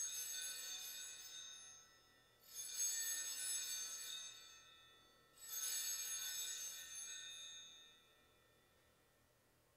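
Altar bells (sanctus bells) rung three times to mark the elevation of the consecrated host. Each ring is a bright, high jangle of several bells that fades over two to three seconds.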